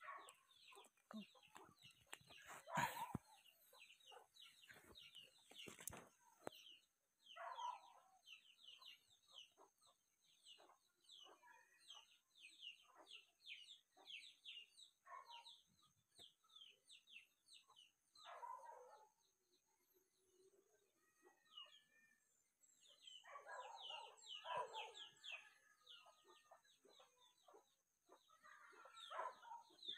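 Faint, short clucks from a wild rooster (red junglefowl) in a few brief bouts, over a steady run of quick, high chirps that fall in pitch.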